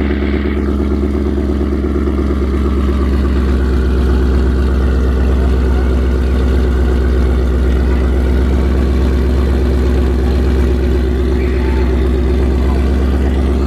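Car engine idling with a loud, steady low exhaust rumble.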